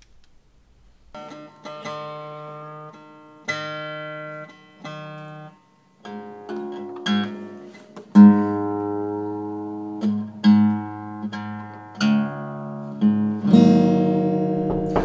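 Steel-string acoustic guitar played slowly and haltingly: single chords and picked notes struck one at a time, each left to ring and fade. There is a short pause about five and a half seconds in, then fuller, louder chords.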